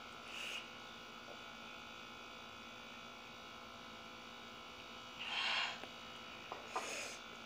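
Steady low electrical hum with a few short breathy exhales, the loudest about five seconds in. The exhales come from someone sipping water and blowing out over a mouth burning from a very hot green chili.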